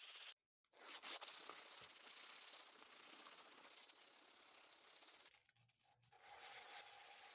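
Sandpaper rubbing by hand on the steel head of an old cobbler's hammer, a faint, steady scraping hiss that cuts out briefly twice. Near the end a faint steady hum sits under it.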